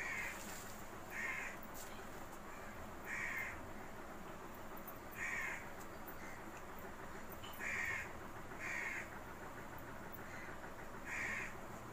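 A bird calling: about seven short calls at uneven gaps of one to two and a half seconds, over a steady faint hiss.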